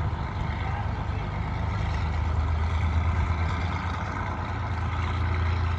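Diesel engine of an SNCF X 3800 'Picasso' railcar running with a steady deep drone as the railcar pulls away.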